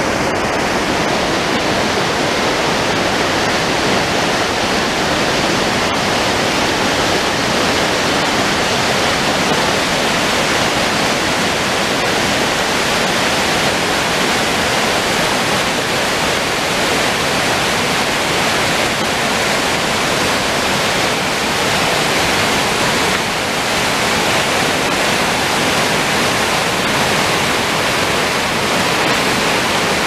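River whitewater and a small waterfall pouring over rocks: loud, steady rushing water.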